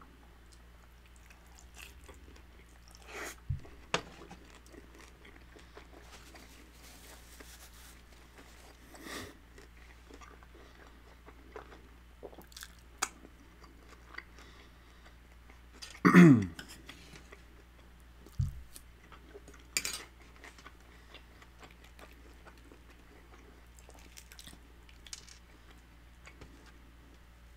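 A person chewing and biting into crispy fried birria tacos: scattered crunches and mouth sounds, with one louder, falling-pitched sound about sixteen seconds in.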